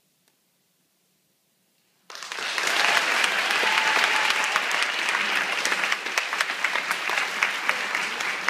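Audience applause breaking out suddenly about two seconds in after near silence, dense and steady, with single sharp claps standing out, greeting the end of a competition yoga routine.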